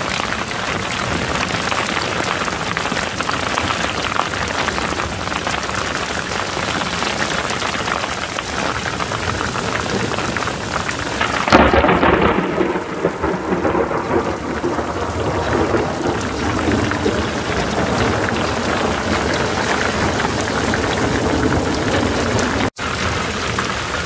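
Heavy rain falling steadily on the yacht's canopy and deck. About halfway through, a sudden loud clap of thunder rumbles on for a few seconds.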